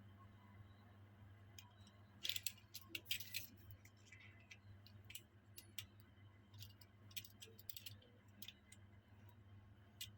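Scattered light clicks and crackles from handling small toy cars and their packaging during unboxing, in two busier clusters, over a faint steady low hum.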